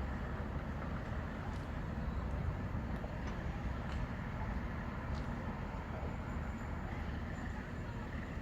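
Heavy diesel engine of construction machinery running steadily, with a deep rumble and a few faint metallic clicks.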